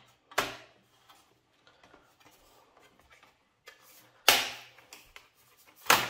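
Laptop bottom cover being pried off: sharp snaps as its clips let go, one about half a second in, the loudest about four seconds in and another just before the end, with faint handling clicks between.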